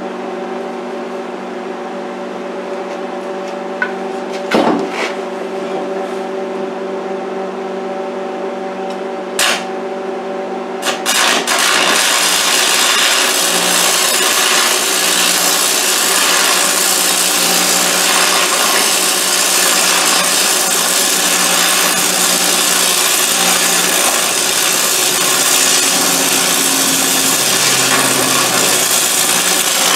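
Stick (arc) welding a square steel post to a steel plate: a steady hum with a few sharp clicks at first, then from about eleven seconds in the welding arc crackles and sizzles steadily as the electrode burns.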